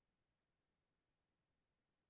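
Near silence: digital silence with only a faint noise floor.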